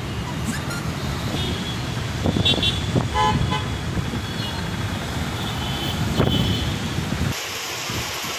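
Wet-road traffic: motorcycle and car engines and tyre hiss, with short vehicle horn toots, loudest about two to three seconds in. Near the end this cuts to a steady hiss of falling rain.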